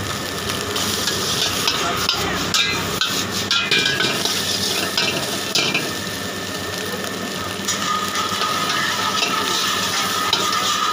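Food sizzling in a hot wok over a gas burner while a metal ladle stirs it, with a run of sharp clinks of the ladle against the pan about two to four seconds in.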